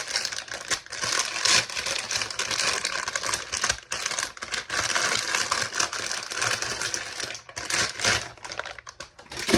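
Packaging rustling and crinkling as a radio scanner is pulled from its box: a steady run of crackles and small clicks, easing off briefly about four seconds in and again near the end.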